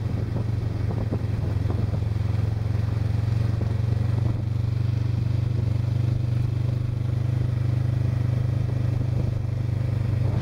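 Motorcycle engine running steadily as the bike cruises at an even speed, a constant low drone, with light clattering in the first few seconds.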